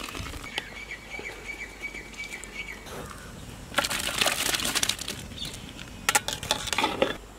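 Boiled potato sticks lifted from a pot of boiling water on a perforated metal skimmer: a rush of water splashing and draining off the skimmer about four seconds in, then a few sharp metal clinks of the skimmer. A bird chirps a quick run of short high notes in the background, stopping about three seconds in.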